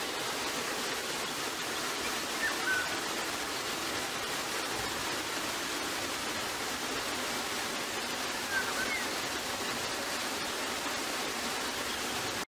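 Steady rushing noise with two brief high chirps, one about two and a half seconds in and one about eight and a half seconds in.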